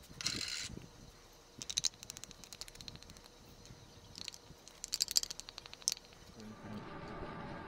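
A wooden craft stick scraping and clicking against thin plastic cups in quick clattering bursts while sticky clear epoxy resin is scraped from one cup into another, with a short rustling plastic crinkle just after the start. Near the end a steadier hum with faint level tones comes in.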